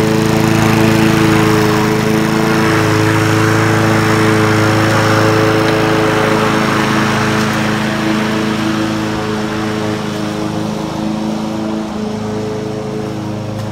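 Honda HR17 rotary lawnmower's four-stroke engine running steadily while the mower is pushed across the grass cutting, its sound fading gradually as it moves away.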